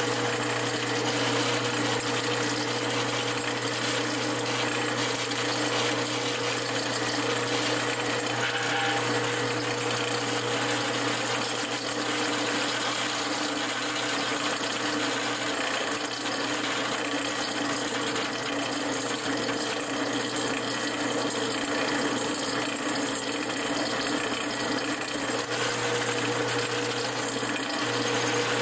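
Drill press running with a steady motor hum as its gold twist bit is fed down and drills through a small clamped steel mounting bracket.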